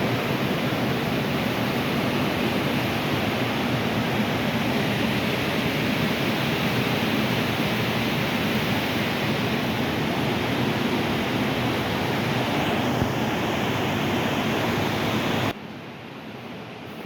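Swollen river in flood, a steady, loud rush of water. It cuts off abruptly about fifteen seconds in, leaving a much quieter background.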